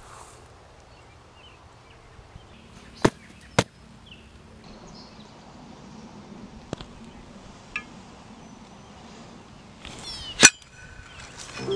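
Faint outdoor background with two sharp knocks about three seconds in, then a louder single strike near the end as a long-handled garden tool is swung down.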